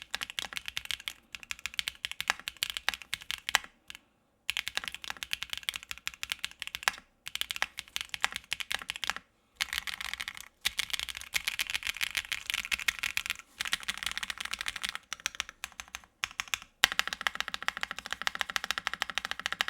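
Mechanical keyboard with Keygeek Little Lucky linear switches being typed on in fast bursts with short pauses between. The switches have a PA12 housing and a 7-sphere UPE stem, a build meant to give a deep, thocky, creamy sound.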